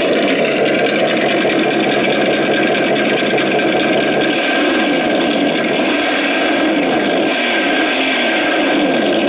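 A 1/10-scale RC trophy truck's simulated engine sound, adjusted and played through its sound unit, running steadily at idle. From about halfway on it gives a string of short rises and falls in pitch, like quick throttle blips.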